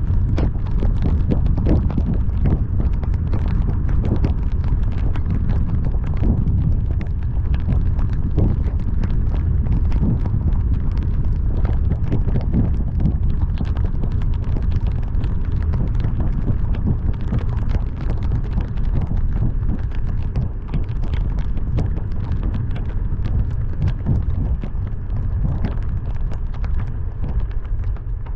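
Heavy rain during a drive: a dense, irregular patter of raindrop hits over a steady low rumble of wind and road noise.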